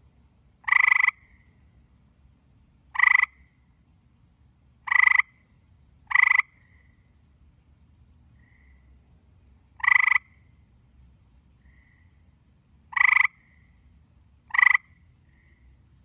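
Gray tree frog calling: seven short, loud trills at irregular intervals of one to three seconds, with fainter, shorter calls in the gaps between them.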